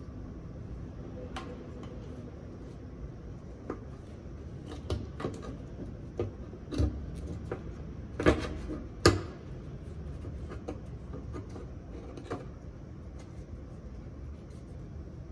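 Scattered light clicks and metal knocks as a motorcycle fuel pump assembly is handled and fitted into the fuel tank opening, with two sharper knocks about eight and nine seconds in, over a steady low hum.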